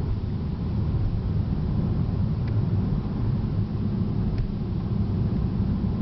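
Cabin noise of a 2008 Porsche 911 Turbo Cabriolet cruising at road speed with the convertible top up: a steady low rumble of engine and tyres.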